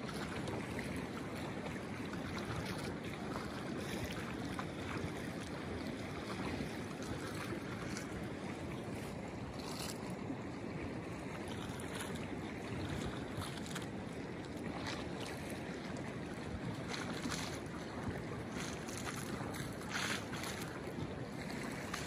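Kolyma River's open water rushing steadily past snow-covered banks, a constant even noise, with a few short crackles scattered through it.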